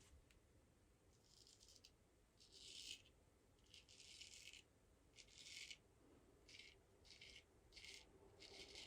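Straight razor scraping through stubble on the neck in short J-hook strokes: a faint dry scratching, about eight strokes, shorter and quicker in the second half.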